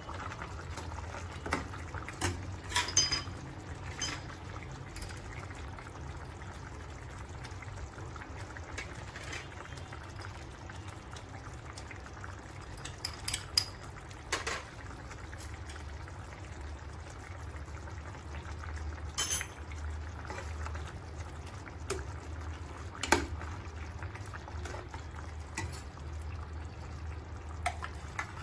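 A stainless steel ladle stirring a thick curry in a stainless steel pan, with scattered metal clinks as it knocks the pan's rim and sides, several close together near the start and around the middle. A steady low hum runs underneath.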